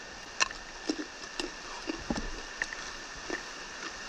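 Crisp crunching as a mouthful of fresh mewa, a small local cucumber, is chewed: irregular crunches about twice a second, over the steady hiss of rain.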